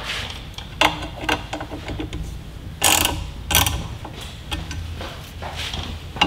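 Hand tool and bolts clicking and rattling against a metal bracket in a few short, separate bursts, as a luggage reinforcement bracket is bolted up under a motorcycle's tail.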